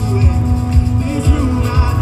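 A live band playing a pop-style worship song with a steady kick-drum beat, held keyboard and guitar tones, and a male lead singer, loud and echoing as heard from the crowd in a large arena.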